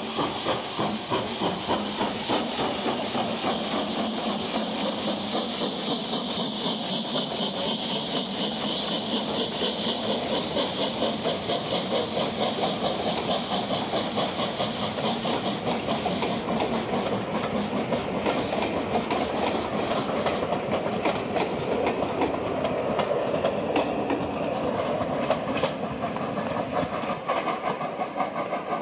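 Southern Railway U class 2-6-0 steam locomotive No. 31806 pulling away under load: a steady rhythm of exhaust chuffs over the hiss of steam, with its coaches' wheels clattering over the rail joints and points as they roll past. About halfway through, the high hiss fades as the engine draws away, leaving the chuffing and the rolling coaches.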